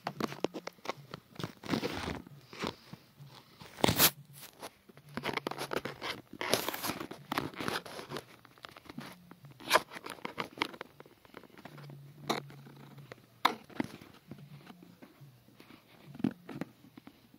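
Handling noise from a phone with a finger pressed against it: irregular rubbing, rustling and sharp clicks, the loudest about four seconds in.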